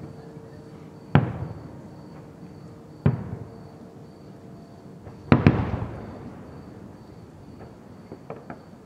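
Aerial firework shells bursting: a bang about a second in, another at about three seconds, and a quick double bang a little past five seconds, each trailing off in a long rolling echo. Faint crackles follow near the end.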